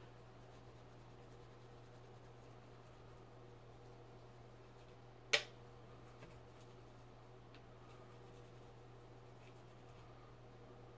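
Faint rubbing of a non-scratch scrub dauber with polish over a silver-plated goblet's embossed metal, with one sharp click about five seconds in and a couple of faint ticks after it.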